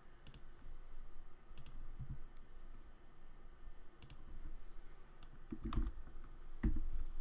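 Computer mouse clicks and keyboard presses: scattered sharp clicks, with a few heavier low knocks in the second half, the loudest near the end.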